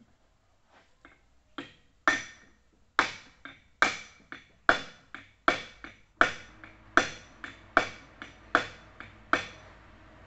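Hammer blows on a small brass mallet held against a gear in a forklift automatic transmission, tapping the gear into place. The brass is there so the gears and bearings aren't damaged and no chips fly. About ten ringing metallic strikes, roughly one every 0.8 s, start about two seconds in, most with a lighter tap after them.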